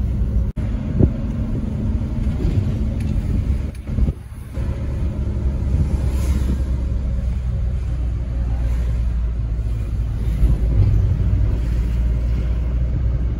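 Steady low rumble of a moving car heard from inside the cabin, engine and road noise together, with a brief dip about four seconds in.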